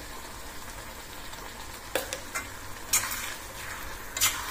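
Onion, tomato and mashed roasted aubergine frying with a soft, steady sizzle in an iron kadhai. From about two seconds in, a metal spoon stirring the mash scrapes and clicks against the pan four times.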